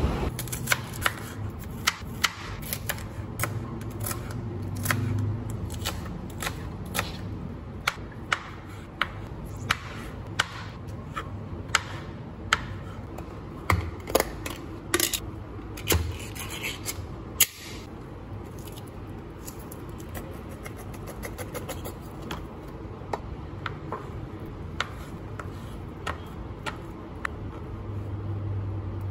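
Irregular sharp taps of a kitchen knife chopping on a plastic cutting board, coming thick and fast in the first half and more sparsely later. About halfway through, a metal can of luncheon meat is worked open with a short scraping sound.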